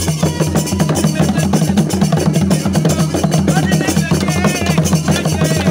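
Fast, dense drumming over a steady low beat, with voices calling out about four seconds in.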